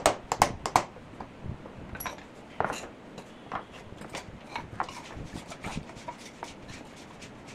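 Wooden knocks and clatter as a wooden deck-chair frame is handled and turned over on a concrete floor. A quick run of four or five sharp knocks comes at the start and is the loudest part, followed by scattered softer knocks and scrapes.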